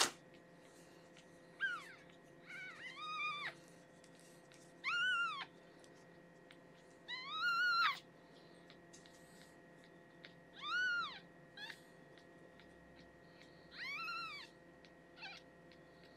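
A week-old newborn kitten mewing: about eight short, high cries a second or two apart, each rising and then falling in pitch. A single sharp click comes right at the start.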